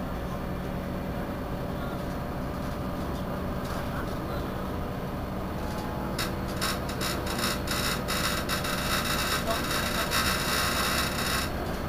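Irisbus Citelis 12 city bus idling at a standstill with a steady low hum. About six seconds in, a rapid, irregular crackling rattle joins it and stops shortly before the end.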